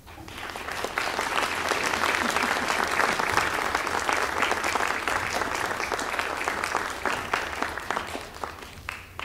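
Concert audience applauding, building up over the first second and tapering off near the end.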